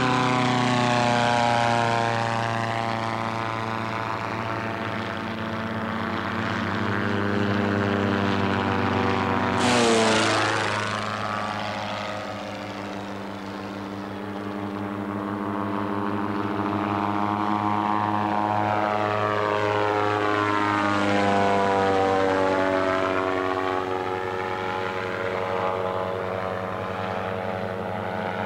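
Volkswagen air-cooled flat-four-powered gyrocopter engine and propeller droning as the gyros fly overhead. One passes close about ten seconds in, louder, its pitch dropping sharply as it goes by. More passes with falling pitch follow about two-thirds of the way through.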